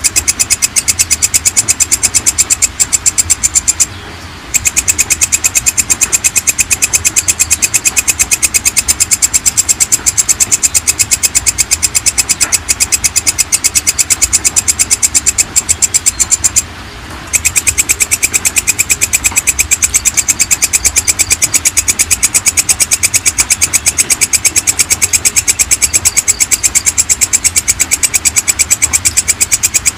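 Walang kecek (belalang kecek) katydid calling: a loud, rapid, even train of chirping pulses, stopping briefly twice, once about four seconds in and again about seventeen seconds in.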